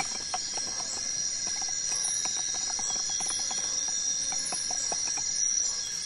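Steady high-pitched drone of forest insects, with light irregular taps and scrapes, several a second, from hand work with a wooden stick in a coconut shell.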